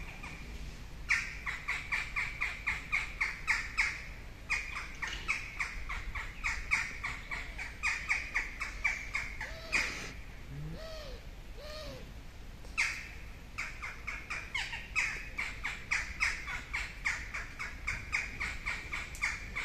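Small birds chirping in the treetops: long runs of fast, sharp chirps, several a second. About ten seconds in the chirping pauses and a few lower, arching calls are heard before it starts again.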